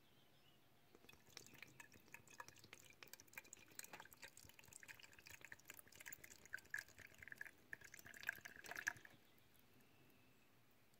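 Fresh brake fluid poured from a plastic bottle into a 1997 Ford Mustang's plastic master cylinder reservoir: a faint trickle with many small drip-like ticks. It starts about a second in, is loudest near the end, and stops about nine seconds in.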